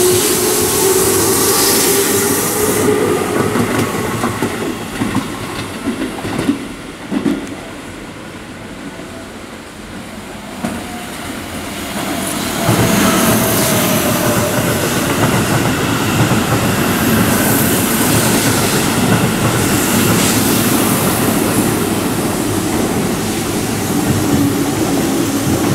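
Electric commuter trains at a station. A green Keihan train is running along the platform for the first few seconds, with wheel noise and motor whine that fade. After a quieter stretch with a couple of clicks, a Keihan 3000-series limited express comes through about twelve seconds in, loud with wheel clatter and gliding motor tones, and rail noise carries on to the end.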